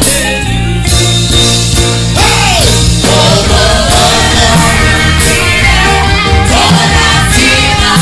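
Gospel praise song: a male lead singer and backing singers over a band with a steady electric bass line.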